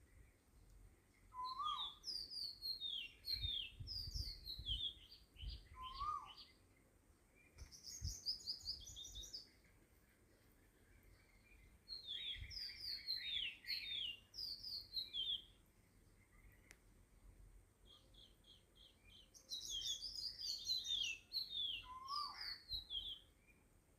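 Small songbird singing in bursts of quick, high chirping phrases every few seconds, some opening with a lower upswept note.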